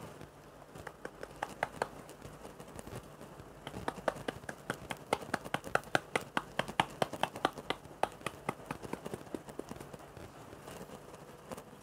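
Sliced buffalo meat being stirred in its marinade in a bowl. A few clicks about a second in, then a quick run of clicks and taps of the utensil against the bowl, about four or five a second, from about four seconds in until near the end.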